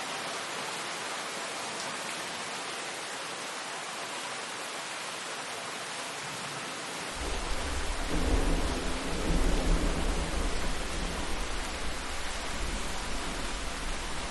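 Steady rainfall hissing, with a deep rumble of thunder starting about halfway through, swelling to its loudest a couple of seconds later and slowly dying away.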